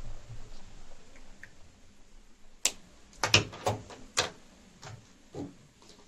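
A handful of light, sharp clicks and taps, clustered in the middle, from a sketch pen being set down and oil pastel sticks being picked through in their plastic tray.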